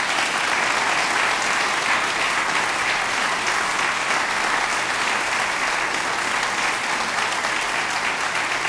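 A congregation applauding, steady and unbroken.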